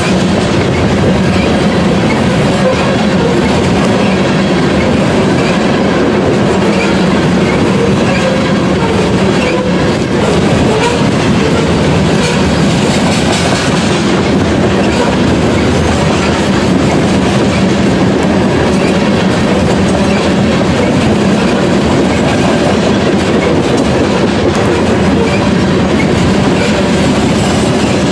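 Covered hopper cars of a freight train rolling past close by: a steady, loud rumble of steel wheels on the rails.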